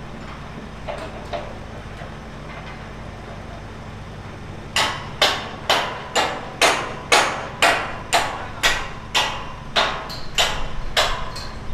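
Hammer blows struck in a steady rhythm of about two a second, starting about five seconds in, a few with a short ring after the strike. A couple of fainter knocks come earlier, and a steady low engine hum runs underneath.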